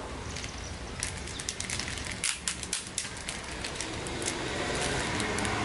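Clear plastic packaging bag crinkling as it is handled and pulled out of a cardboard box, with a quick run of crackles from about a second in. A steady rush of noise swells near the end.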